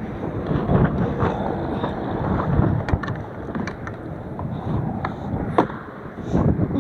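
Strong gusting wind buffeting the microphone, with a few sharp knocks now and then.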